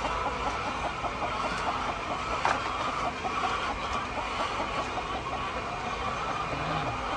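A flock of laying hens clucking together, many short overlapping calls over a steady background noise, with a single sharp click about two and a half seconds in.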